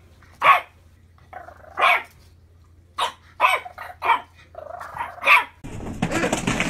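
A puppy barking in short, high-pitched yips, about nine of them at uneven spacing, some in quick pairs. About five and a half seconds in, a louder jumble of noise with clatter takes over.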